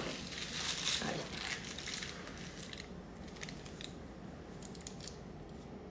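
Crinkling and rustling of a piping bag being handled and squeezed, densest in the first second or so, then a few faint crackles.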